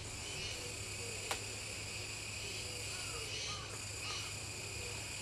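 Steady faint chorus of insects, with a few faint short bird calls in the middle and a single small click about a second in.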